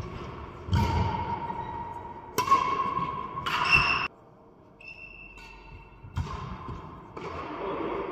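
Badminton rackets striking a shuttlecock in a doubles rally: about five sharp hits, one every second or two.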